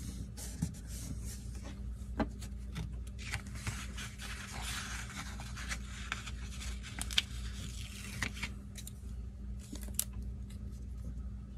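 Paper and sticker sheets rustling and rubbing under fingers as stickers are peeled off and pressed onto planner pages, with a few sharp clicks.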